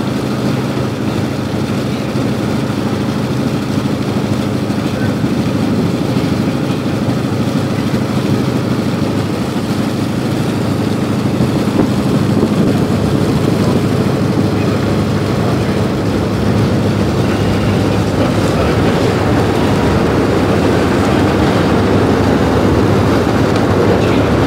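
Diesel engine of the river ferry Seixalense running with a steady low hum, growing somewhat louder in the second half as the boat manoeuvres alongside the pier.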